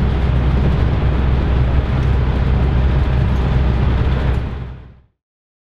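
Steady, low road and engine rumble inside the cabin of a moving Ford motorhome. It fades out about four and a half seconds in and ends in silence.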